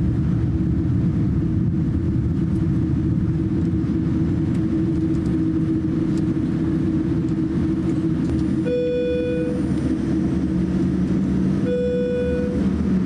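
Steady cabin noise inside a Boeing 787-9 taxiing, its engines running at low power with a constant hum. Near the end, two short steady tones, each about a second long, sound about three seconds apart.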